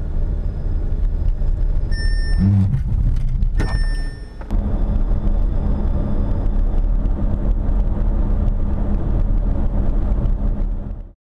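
Audi Q2 driving on a test track, a steady heavy rumble of road and engine noise. Two short high beeps sound about two and four seconds in. The noise cuts off abruptly just before the end.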